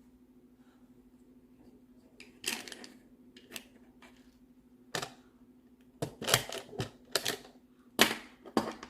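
Plastic magnetic building tiles clicking and clacking together as they are stacked and placed: a few single clicks at first, then quicker clusters of clicks in the second half, over a faint steady hum.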